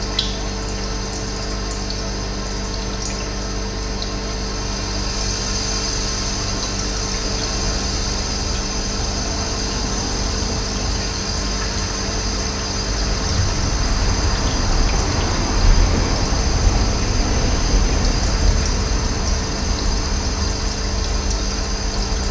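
Running water flowing steadily, with a few faint high bird chirps in the first seconds; the water grows louder and deeper from about halfway through.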